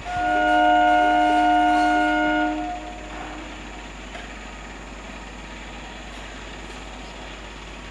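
Horn of an approaching BEML-built electric multiple unit (EMU) commuter train: one long blast of about two and a half seconds, several tones sounding together, after which only a quieter steady background remains.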